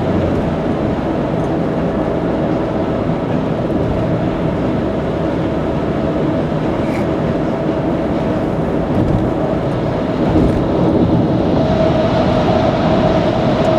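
Steady road noise of a car cruising on an expressway, heard inside the cabin: tyre and engine drone with a constant hum, getting a little louder about ten seconds in.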